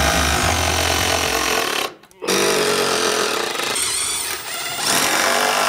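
Milwaukee M12 Surge impact driver driving screws through steel brackets into a wooden 2x6, with a loud hammering rattle in runs that stop briefly about two seconds in.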